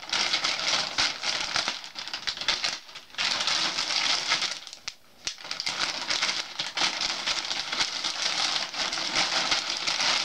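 A white plastic mailer package being torn open and handled, crinkling and rustling, with a short pause about halfway through.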